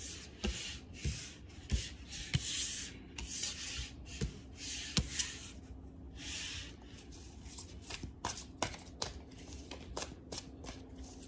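Reading cards sliding across a wooden tabletop with short swishes and being tapped down one at a time. Near the end, the deck is shuffled by hand in a quick run of small flicking clicks.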